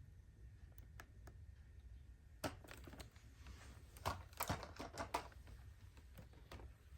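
Scattered light clicks and taps, a few early on and a quick cluster around the middle, with no motor running.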